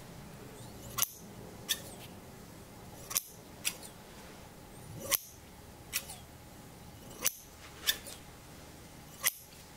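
Metal shears snipping, with sharp snips in pairs about every two seconds, nine in all.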